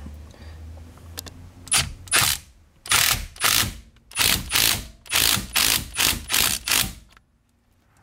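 Cordless power tool driving the steering-wheel hub's centre nut tight in about ten short bursts, several of them in quick pairs.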